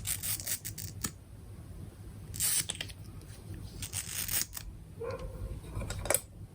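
Faint clicks and rustling from makeup being handled, with a few short scraping sounds spread through.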